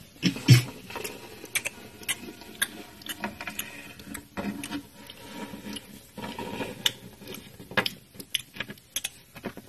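Irregular light clicks and taps of small plastic toy figures and a toy bowl being handled and set down on a table, with a louder knock about half a second in.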